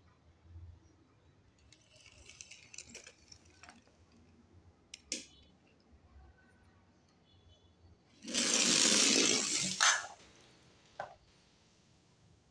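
Die-cast toy car running down a wooden slide into a tub of orange water: light clicks and rattles as the toy is handled, then a loud rush lasting under two seconds that ends in a sharp click.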